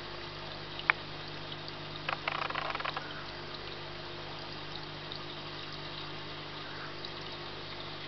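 Water from a vivarium waterfall trickling and splashing over wet driftwood, over the steady low hum of its small pump, with a louder spell of splashing about two seconds in. A single sharp click sounds about a second in.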